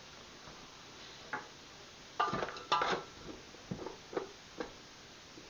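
Metal spoon stirring chopped onions in a large metal stockpot, with a burst of clattering scrapes and knocks against the pot about two seconds in and a few lighter taps after.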